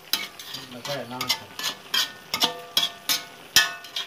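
Metal spoon scraping and clanking against a steel kadai as beef pieces are stirred and fried, with sizzling underneath. The clanks come irregularly, about three a second, several leaving a short metallic ring, the loudest near the end.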